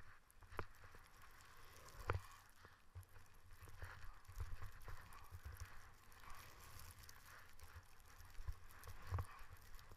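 Skis hissing through deep powder snow, faint, under a low rumble, with a few sharp knocks, the loudest about two seconds in and another near the end.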